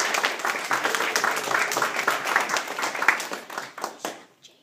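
Small audience applauding, which fades out near the end.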